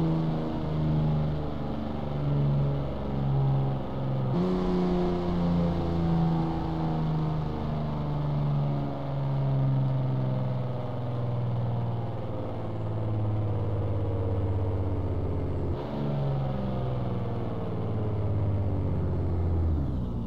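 Pagani Zonda Tricolore's Mercedes-AMG V12 engine in a tunnel, its note falling slowly as the car slows. The pitch jumps up sharply about four seconds in and again near sixteen seconds, as on downshifts, and drops to a lower steady note at the end.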